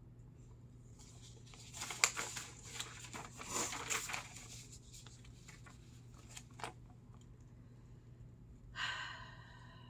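Rustling and crackling handling noise with sharp clicks for a few seconds, as something like paper is handled, then a single click, and a short breath near the end. A low steady hum runs underneath.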